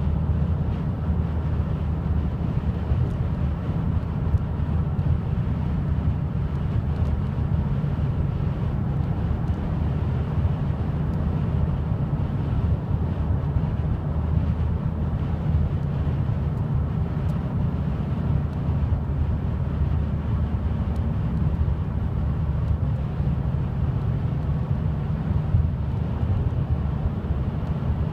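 Steady low rumble of a car driving at highway speed, engine and tyre noise heard from inside the cabin.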